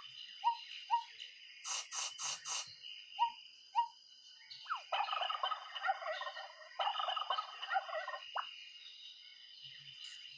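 Turkey gobbling: a few short calls and a quick run of four notes, then two long gobbles in the middle. It is played as the sound of an ostrich. A faint steady high whine runs underneath.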